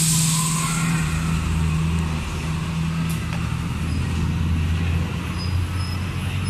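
Water poured onto a hot pan of frying buns hisses and sizzles, the hiss dying away over the first second or so. A steady low engine hum, typical of an idling motor vehicle, runs underneath throughout.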